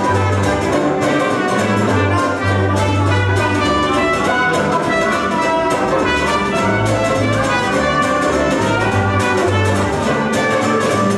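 Small acoustic band playing live: a trumpet carrying the melody over strummed banjo and acoustic guitar and a plucked double bass, with a man singing.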